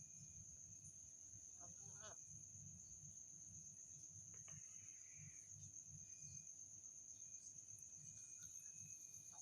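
Domestic cat snoring softly: a faint, low fluttering rumble.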